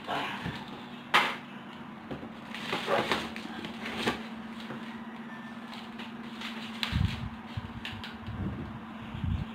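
Knocks and scraping from a large cardboard TV box being handled and shifted on a stand, with a sharp knock about a second in and dull low thumps near the end, over a steady low hum.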